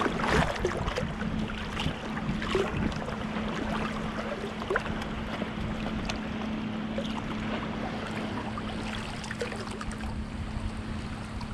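Small lake waves lapping and splashing around a camera held at water level, with a scatter of small splashes in the first few seconds. A steady low hum runs under the water sound throughout.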